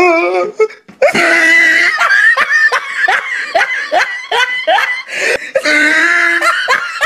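Hearty human laughter: a long run of short, falling 'ha' bursts, about three a second, picking up after a brief pause about a second in.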